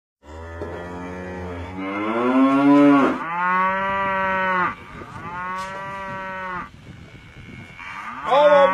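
Cattle lowing: a run of about five long moos, one after another, one of them rising in pitch.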